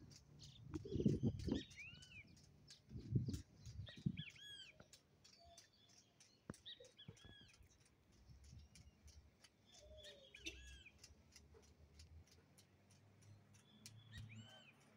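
Small birds chirping, with repeated short arching calls. A few low rumbles sound in the first four seconds, and a faint steady ticking runs about three times a second beneath the calls.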